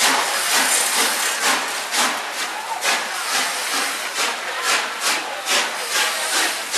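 A train passing at speed: a steady rushing hiss with the wheels clicking irregularly over rail joints, a few times a second. No horn sounds.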